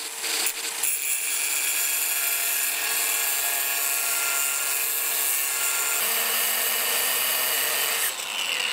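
Angle grinder with a thin cutoff wheel cutting through a steel root weld: a steady whine over the hiss of the wheel biting the metal. It is cutting out a root pass with incomplete penetration, the first step of a root repair.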